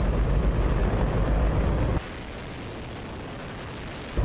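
Liquid hydrogen–oxygen rocket engine running on a static test firing: a loud, continuous roar. About two seconds in, the sound abruptly drops to a quieter, thinner hiss without the deep rumble.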